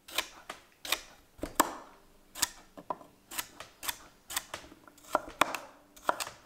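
Knife chopping fresh rhubarb stalks into 1-inch slices, a sharp cutting tap roughly twice a second.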